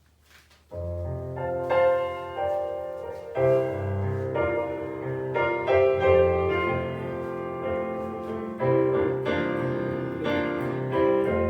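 Piano playing a slow ballad introduction in sustained chords, coming in about a second in after a brief near-silent pause.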